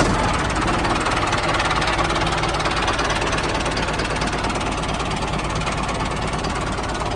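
Small engine of a DIY mini tractor running steadily, with a fast, even knocking rattle.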